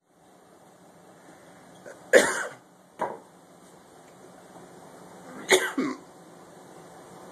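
A person hiccuping: sharp, sudden hics about two and three seconds in, then a quick pair about five and a half seconds in.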